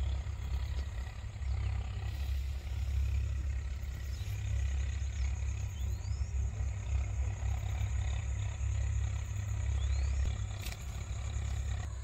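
Wind buffeting the microphone: a steady, uneven low rumble with no speech over it.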